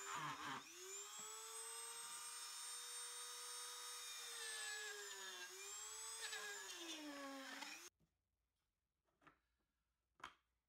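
Dremel rotary tool with a small grinding stone running at high speed, grinding into plastic to enlarge holes. Its high whine dips in pitch a few times as the stone bears in, sags near the end, and stops abruptly about eight seconds in. A couple of faint knocks follow.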